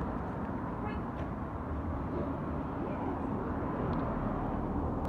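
Steady low outdoor background rumble, with a faint short high squeak about a second in.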